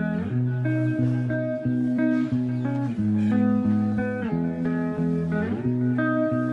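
Background music: a plucked guitar melody over a steady bass line, with notes sliding between pitches.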